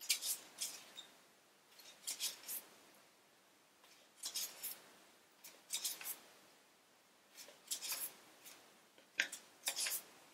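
Pages of a paperback book being leafed through: short, crisp paper rustles and flicks that come in quick clusters every second or two.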